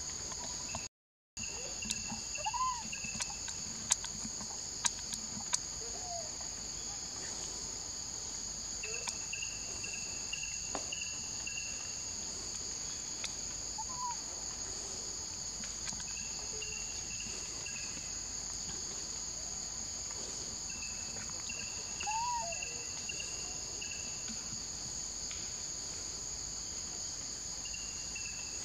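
Steady, high-pitched forest insect chorus, with a short repeated call about every six seconds and a few sharp clicks. The sound cuts out for a moment about a second in.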